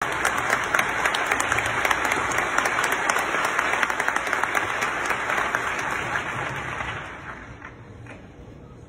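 Concert audience applauding. The clapping fades away about seven seconds in.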